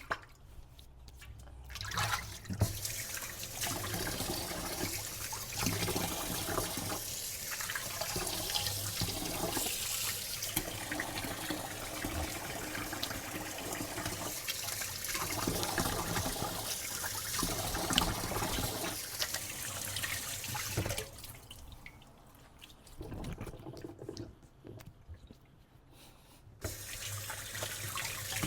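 Tap water running and splashing into a sink, cut off for a few seconds near the end, with small clicks and knocks in the gap, then running again.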